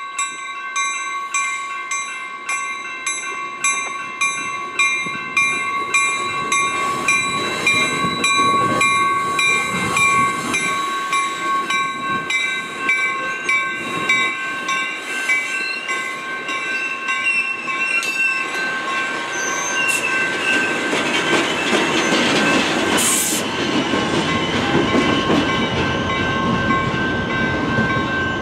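A railroad crossing bell rings in quick, even strokes as a Trinity Railway Express bilevel commuter train rolls through the crossing. The rumble and clatter of the cars build through the middle. The bell strokes stop about two-thirds of the way through while the train noise carries on.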